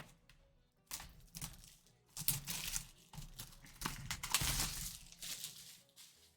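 Plastic shrink-wrap being torn and peeled off a trading card box, crinkling and crackling in irregular bursts.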